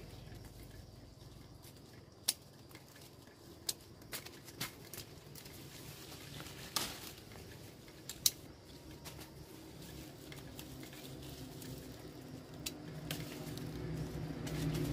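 Scattered light clicks and knocks, a dozen or so at irregular intervals. An engine hum grows steadily louder over the last few seconds.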